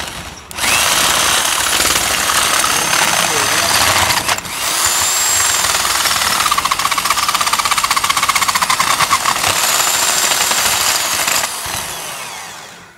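Electric hand drill running under load, its bit grinding around the edge of a hole in a steel tractor hitch to enlarge it for a 5/8-inch hitch pin. It spins up, stops briefly just after the start, then runs for about eleven seconds with a short dip around four seconds in, and winds down near the end.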